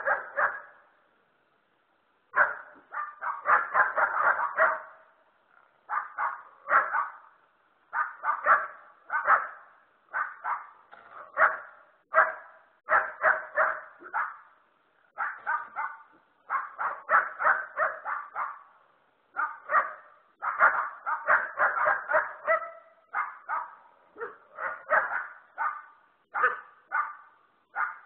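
Dog barking in quick runs of short barks with brief pauses between them, one burst at the start and then almost without letup from about two seconds in.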